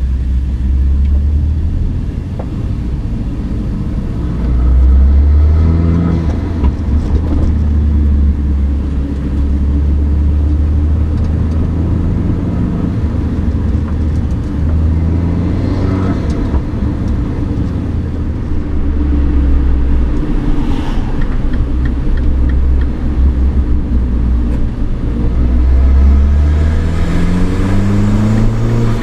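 Mini R56 John Cooper Works' turbocharged 1.6-litre four-cylinder, fitted with a DOS cold air intake and stock exhaust, driving under load with a steady low drone. The engine note rises in pitch as it accelerates several times, near the start, in the middle and near the end.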